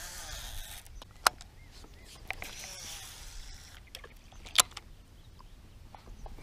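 Quiet handling of a baitcasting rod and reel on a boat: two sharp clicks a few seconds apart over a soft hiss and low rumble.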